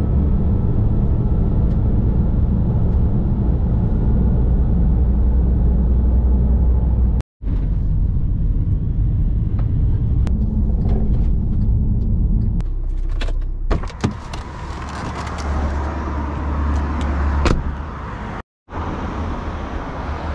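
Steady low road and engine rumble inside a moving van's cabin, cut short twice by brief silences. About thirteen seconds in, the rumble gives way to thinner outdoor noise with a couple of sharp knocks.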